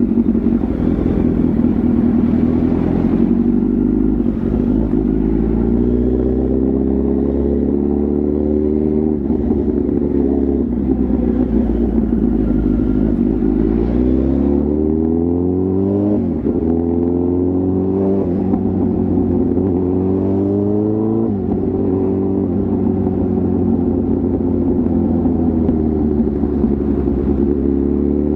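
Kawasaki ZX-10R's inline-four engine and exhaust, heard from the moving bike. The revs rise and fall back several times in a row as it accelerates and shifts through the gears, then hold at a fairly steady pitch for the last several seconds.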